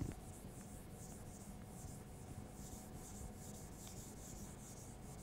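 Whiteboard eraser rubbing across a whiteboard in faint, repeated back-and-forth strokes, about two or three a second, with a light knock as it first meets the board.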